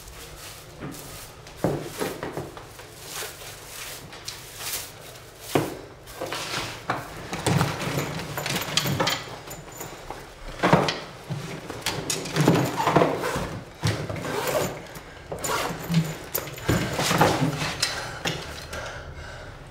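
Broom sweeping a wooden parquet floor: irregular scraping strokes, with a few sharper knocks among them.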